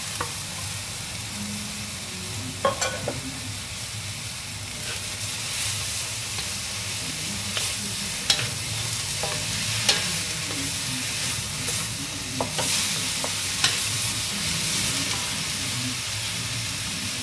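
Julienned chayote and dried shrimp sizzling steadily in a hot wok as a wooden spatula stirs them, with a sharp knock of the spatula against the wok every few seconds.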